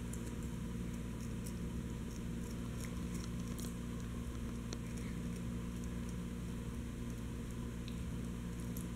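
Chihuahua puppy gnawing on a knotted rawhide chew: scattered faint clicks of teeth on the chew, over a steady low hum.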